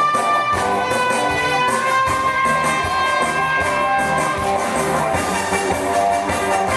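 Trumpet playing a twist melody in long held notes over band accompaniment with a steady beat.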